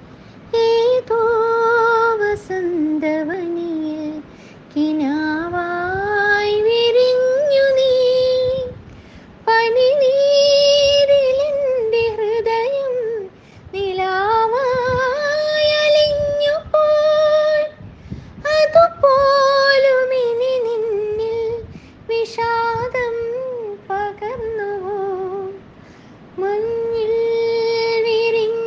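A solo female voice singing a Malayalam film song in long, high melodic phrases with vibrato, pausing briefly for breath between them.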